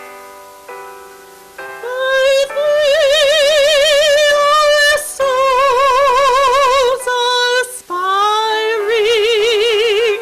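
A woman singing solo in an operatic style over a soft instrumental accompaniment. She comes in about two seconds in and holds long notes with a wide vibrato, in three phrases with short breaths between them.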